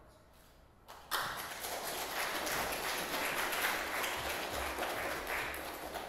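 Audience applause: many people clapping, starting suddenly about a second in and holding steady.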